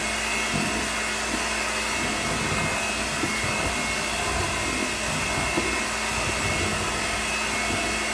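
Electric hand mixer running steadily with a constant motor whine, beating butter and powdered sugar in a bowl.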